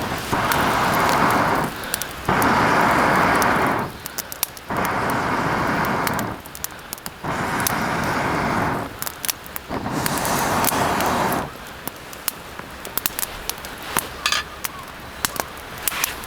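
Five long rushing bursts of noise, each about a second and a half with short gaps between, then a wood campfire crackling with scattered sharp pops.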